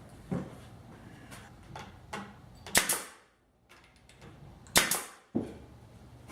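Woodworking tool sounds: a series of sharp knocks and snaps, the two loudest about three and five seconds in, with a brief dead gap between them.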